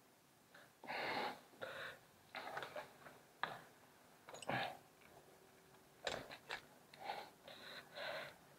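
Faint, uneven puffs of breath from a person walking, with a few scuffs and knocks of footsteps on concrete and debris.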